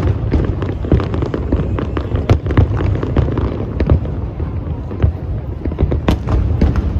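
Fireworks display going off in a dense barrage: many bangs and crackles in quick succession, several a second, over a continuous low rumble.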